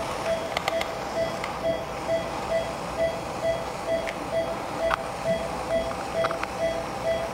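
Operating-room patient monitor beeping steadily at one even pitch, about two beeps a second, the pulse tone following the anaesthetised patient's heartbeat. A few light clicks of dental hand instruments sound now and then.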